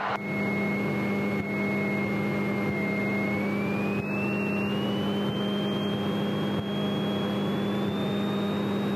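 Single-engine piston airplane's engine and propeller running steadily, heard inside the cockpit. A thin high whine rides over the drone and slowly rises in pitch from about three seconds in.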